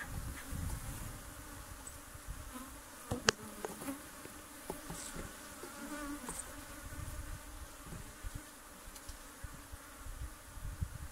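Honeybees buzzing around an opened hive as the frames are worked, with one sharp click or knock about three seconds in.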